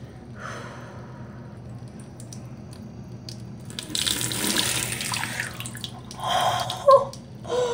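Water from a tap running and splashing in a bathroom sink, loudest about four to five seconds in.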